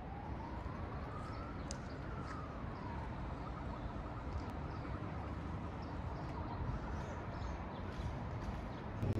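Outdoor street ambience: a steady rumble of traffic and wind, with a distant wailing tone that rises and then falls once over the first three seconds, and faint high chirps scattered throughout.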